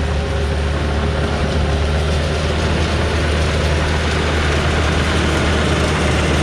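Diesel engine of heavy construction equipment running steadily with a deep, even drone.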